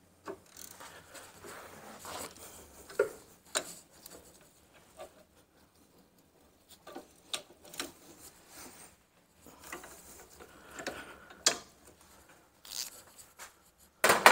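Hand ratchet clicking in short irregular spells, with small tool clinks, as the rear brake caliper carrier bolts are snugged up by hand. A loud knock comes near the end.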